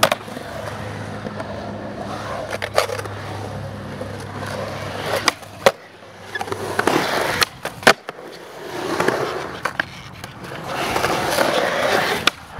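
Skateboard wheels rolling over concrete, swelling and fading as the rider carves the ramps. Several sharp clacks of the board hitting and scraping the concrete, the loudest a little past the middle.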